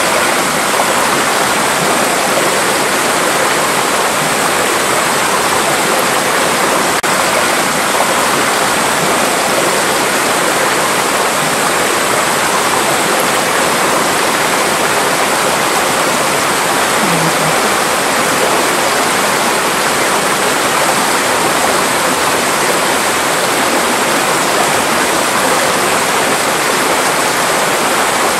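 Mountain valley stream, water rushing steadily with an even, continuous hiss.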